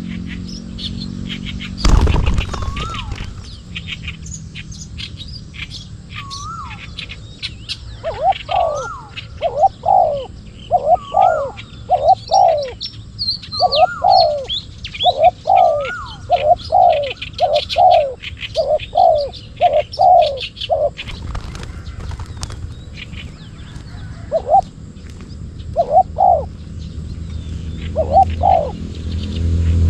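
Spotted doves cooing: a run of short coos, about two a second, for over ten seconds, then a few more near the end, with a higher up-curving note repeating among them and small birds chirping faintly. A single sharp knock about two seconds in.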